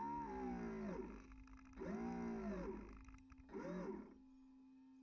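Small electric drive motor of an RC model fireboat whining in short throttle bursts, about three times, its pitch sweeping up and back down each time, over a steady hum.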